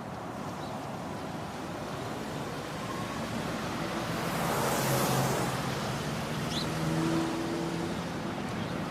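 Street traffic: a motor vehicle passes by, its rushing noise swelling to a peak about halfway through and then fading.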